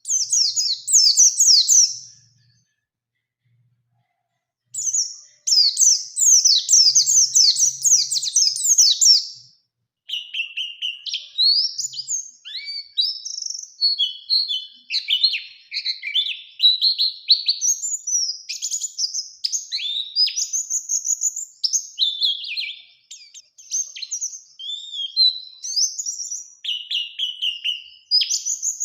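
White-eye (pleci) singing in full voice: two bursts of rapid, high-pitched trilling notes, separated by short pauses, then from about ten seconds in an unbroken, varied run of quick chirps and whistles.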